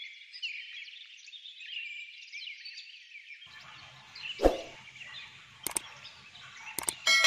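Birds chirping and twittering in the background. A dull thud about halfway through, a couple of sharp clicks, and a ringing metallic clang just before the end.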